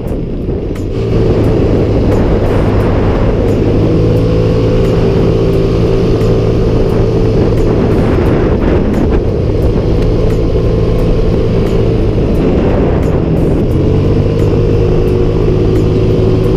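Motor scooter's engine running at a steady cruising speed, with wind rushing over the camera microphone. It gets louder about a second in and then holds steady.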